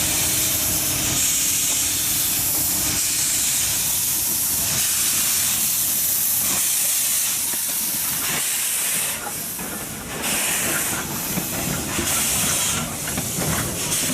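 Train running close by with a loud, steady rushing hiss, easing briefly about nine seconds in and again near the end.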